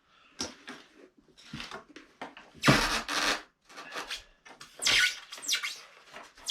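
Packaging being handled as parts are unwrapped: a series of rustles and crinkles, the longest and loudest a little under halfway through.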